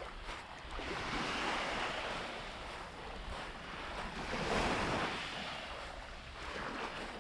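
Sea waves washing onto the shore, the surf hiss swelling and falling back twice, about three seconds apart.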